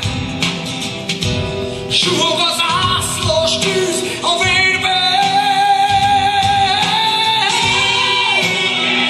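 Hungarian folk song sung over instrumental music, with a long held, wavering note from about four seconds in to past eight seconds.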